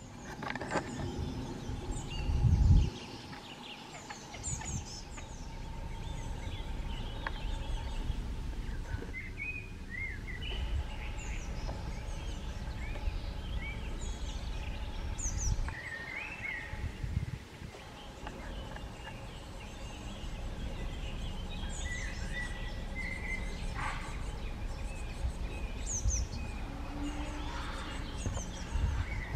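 Several wild birds singing and calling in short chirps and whistles, over low rumbling bursts, the loudest about two and a half seconds in, and a faint steady hum.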